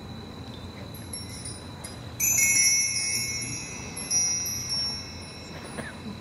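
Small metal chimes ringing: a bright, high ring starts suddenly about two seconds in and fades, then two more strikes follow about two seconds later, each ringing out.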